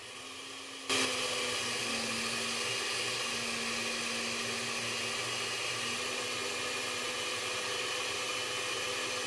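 Electric countertop blender grinding soaked raw rice with coconut milk into a paste. It starts on a lower setting and is switched up to a louder, faster speed about a second in, then runs steadily.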